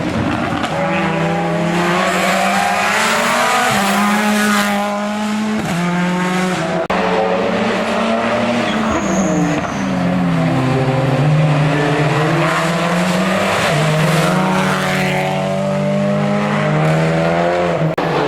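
Racing car engine at full throttle on a hill climb, the revs climbing and dropping again and again as it shifts through the gears.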